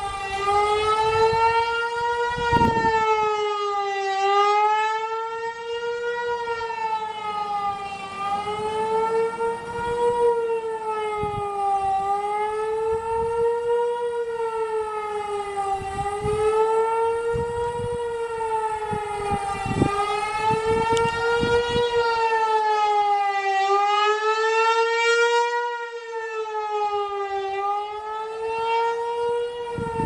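ASC T-128 outdoor warning siren sounding a fast wail: one steady tone gliding up and down about once every three to four seconds, swelling and fading as the rotating horn sweeps round.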